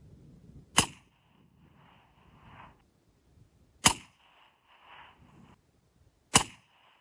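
Three rifle shots from a short-barrelled Christensen Arms MPR in .308, about three seconds and then two and a half seconds apart. Each sharp crack is followed by a fainter sound lasting a second or two.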